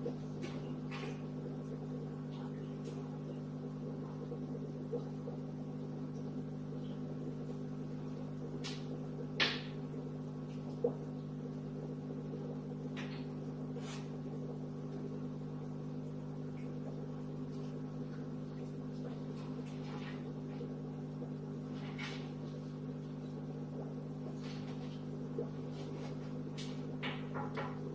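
Steady electric hum of an aquarium pump running, with scattered short clicks; the two loudest come about nine and a half and eleven seconds in.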